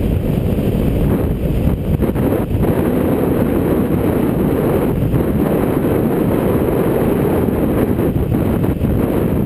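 Wind buffeting a GoPro camera's microphone as a folding bicycle coasts fast downhill: a steady, loud, low rumble of rushing air.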